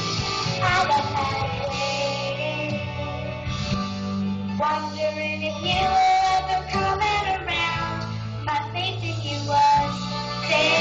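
A solo singer singing a song over instrumental accompaniment, with a sung melody moving over a steady low backing.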